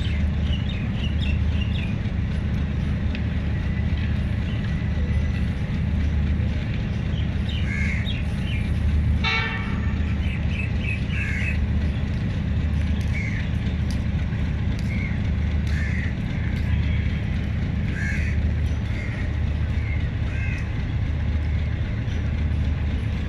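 Diesel-electric locomotive idling with a steady low rumble that swells slightly every second or two. A train horn gives one short toot about nine seconds in.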